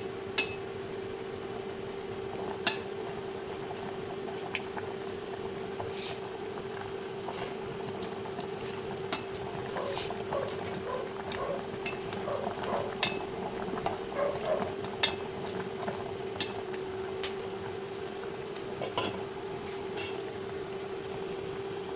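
A pot of sinigang soup bubbling on the stove, with a run of small bubbling pops in the middle. Now and then a utensil clinks sharply against the pot. A steady hum runs underneath.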